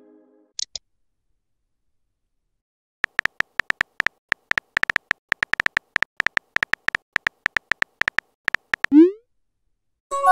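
Simulated smartphone keyboard sound effect: a rapid, irregular run of about forty short tapping clicks as a text message is typed. Near the end comes a short rising swoosh as the message is sent, and a chime begins at the very end.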